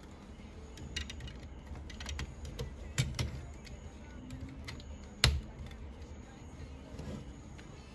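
Hard plastic parts of a DX King-Ohger combining robot toy clicking and knocking as they are handled and fitted together: an irregular scatter of sharp clicks, the loudest a little after five seconds in.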